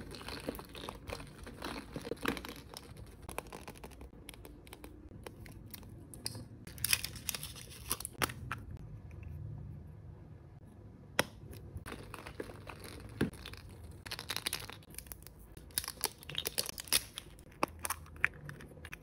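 Plastic surprise-egg capsules being handled and opened by hand: crinkling and rustling of plastic, with sharp clicks and snaps scattered throughout as the capsule halves are pulled apart.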